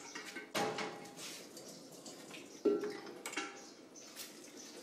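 Kitchen clatter: three sharp knocks of kitchenware, each with a short ringing tone, about half a second in, near the middle and again soon after, over faint water sounds.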